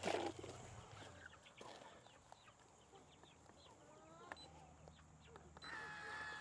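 Chickens clucking faintly, with a brief rustle at the start and a steady high-pitched tone that begins near the end.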